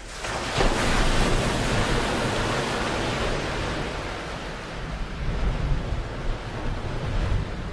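Ocean surf: a sudden loud rush of breaking water that peaks about a second in and fades slowly over several seconds, over a steady low wind rumble.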